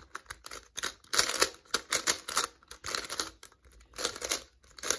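GAN Skewb M magnetic Skewb being turned by hand: quick clusters of plastic clicks as its pieces twist and snap into place, several turns a second with short pauses between.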